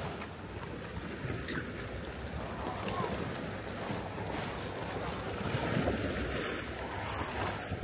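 Wind noise on the microphone over a steady wash of sea water at the shore.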